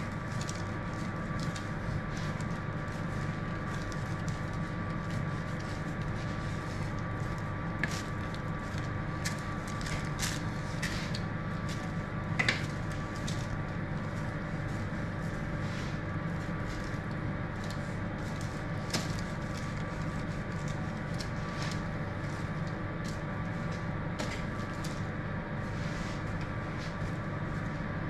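Steady mechanical hum of bakery equipment, with faint scattered clicks and taps from a blade and metal baking trays as round sourdough loaves are scored; a couple of the taps, about eight and twelve seconds in, are sharper.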